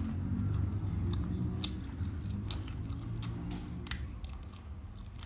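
A person chewing food with open-mouthed eating sounds, broken by several sharp crunches.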